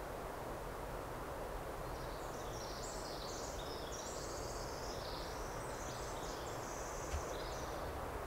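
A small songbird sings one long, high, rapid song, starting about two seconds in and ending past seven seconds, over a steady background hiss. There is a soft low bump near the end.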